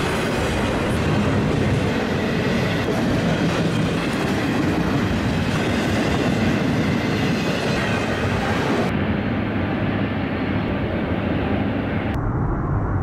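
Freight train of double-stack container well cars rolling past close by: a loud, steady noise of steel wheels on rail with some clickety-clack. The upper hiss cuts off abruptly about nine seconds in.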